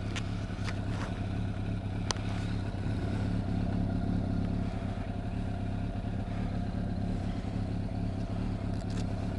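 Motorcycle engine idling steadily, with a few light clicks in the first two seconds.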